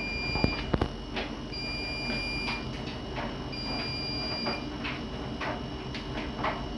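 Siemens iQ300 washing machine sounding its end-of-programme signal: a steady high beep about a second long, repeated every two seconds, with light clicks and knocks between the beeps.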